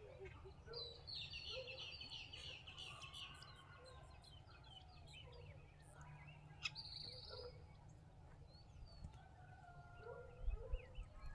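Forest birds calling: a rapid high trill about a second in, a short buzzy high note in the middle, and scattered short chirps throughout. Under them runs a faint low rumble, with a few low thumps near the end.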